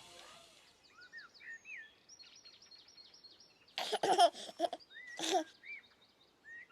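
Songbirds chirping and twittering with short rising and falling calls, and a few short bursts of laughter in high voices between about four and five and a half seconds in. A piece of music fades out at the very start.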